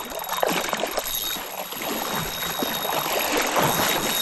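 Water sloshing and splashing around a small fishing boat, with scattered small knocks.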